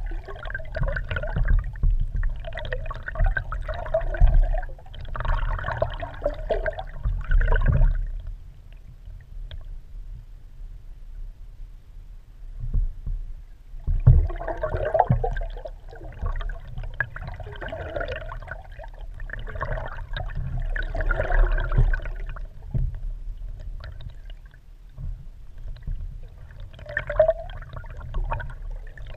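Water gurgling and sloshing around a submerged, housed action camera under a moving kayak, heard muffled as through the housing over a steady low rumble. It comes in repeated surges about every second or two, with two quieter lulls of several seconds.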